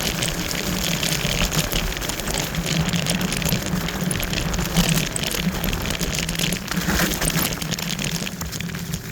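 Wolf Warrior electric scooter riding, with wind and tyre noise rushing over the microphone and a steady low hum underneath.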